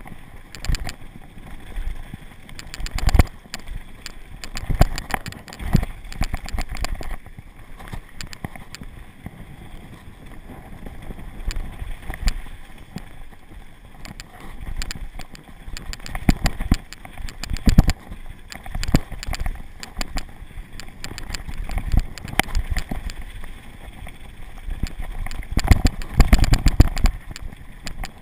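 Downhill mountain bike ridden fast over a rough dirt trail: a steady rumble of tyres on dirt and wind, broken by irregular knocks and rattles as the bike hits bumps, with a cluster of louder knocks near the end.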